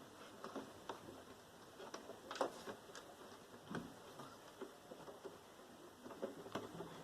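Scattered light clicks and taps of hard parts and tools being handled while a desktop computer tower is taken apart, at an uneven pace, the sharpest tap about two and a half seconds in.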